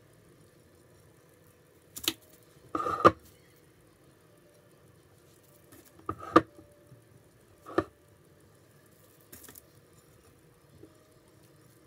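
A few short knocks and scrapes, one of them slightly longer, from a silicone spatula working chopped walnuts against a ceramic cake plate, with a rustle of parchment paper.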